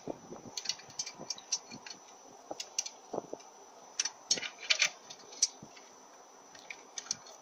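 Small steel parts clicking and tapping together as a washer and a retaining pin are fitted onto the band adjuster of a cast iron Powerglide transmission: light, irregular clicks, bunched most thickly around four to five seconds in.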